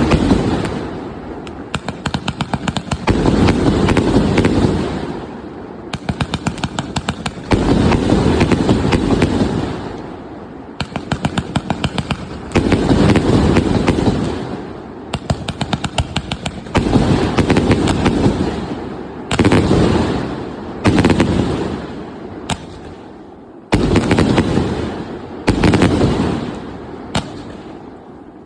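A 130-shot firework cake firing: runs of rapid launch shots, each wave swelling into the bursting of the shells, repeating every two to three seconds, about a dozen times.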